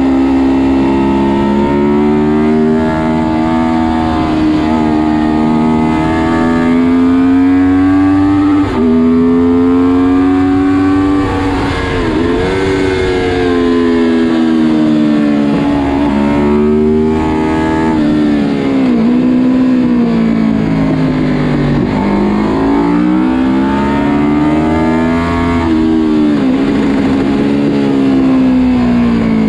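Honda VFR750 RC24's V4 engine heard onboard at racing speed, its revs climbing and then dropping back sharply over and over as it accelerates, changes gear and slows for corners. A steady rush of wind runs underneath.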